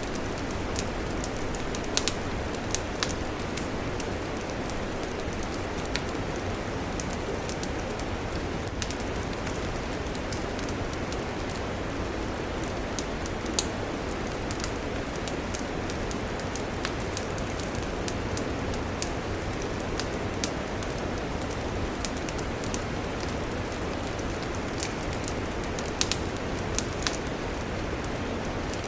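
Campfire burning: a steady rushing hiss with frequent sharp crackles and pops from the wood, a few louder snaps standing out about two seconds in, halfway through and near the end.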